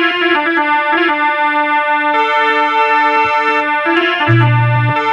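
Instrumental music: an electronic keyboard plays a melody over held chord notes, and a low bass note comes in about four seconds in.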